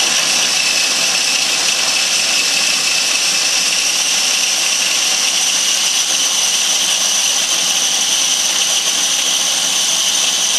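Small electric food processor running continuously at an even speed, a steady high whine over a whir, as its S-blade purees chopped bell peppers, onion, garlic and parsley with lime juice.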